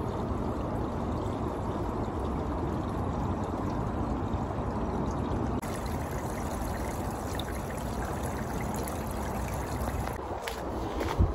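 Small forest stream trickling steadily over pebbles and leaf debris.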